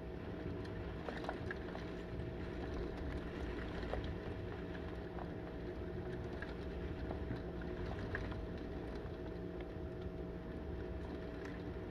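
Heavy rain falling steadily, with scattered sharp drop clicks, heard from behind a window, over a steady low hum.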